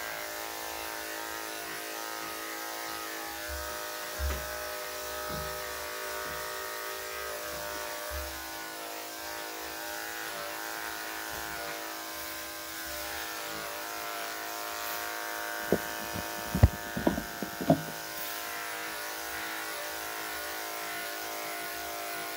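Corded electric dog clippers with a #5 blade running steadily with an even buzz while shaving a dog's coat. A few short knocks come about two-thirds of the way through.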